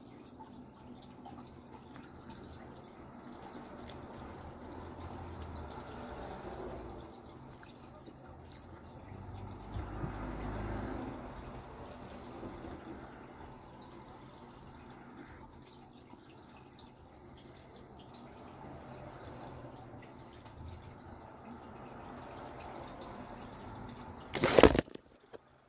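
Faint rustling and room noise, then one sharp, loud knock near the end as a hand grabs the camera.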